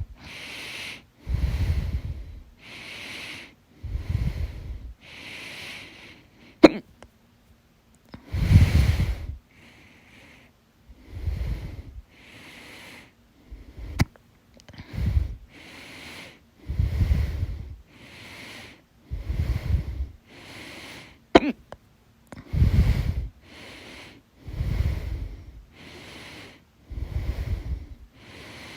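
A woman breathing heavily close to the microphone, with a breath about every second, alternately louder and softer, during a bout of hiccups. Three short sharp hiccups come about seven seconds apart.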